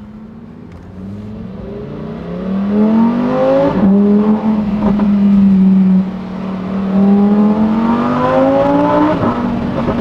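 Lamborghini Huracán STO's V10 engine accelerating hard through the gears. The engine note climbs twice, and each time drops suddenly at an upshift with a short crack.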